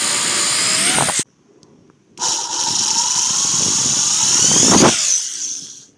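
Cordless drill boring holes through a plastic kayak hull: one run of drilling that stops about a second in, then a second, longer run from about two seconds in that dies away near the end.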